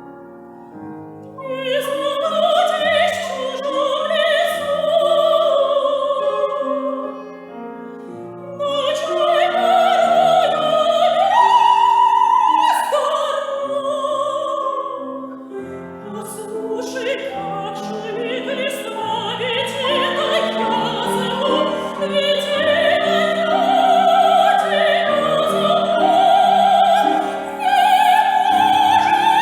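Soprano singing an aria in operatic style with piano accompaniment, her voice held in long phrases with vibrato. The piano plays alone at first, and the voice comes in about a second and a half in, pausing briefly twice between phrases.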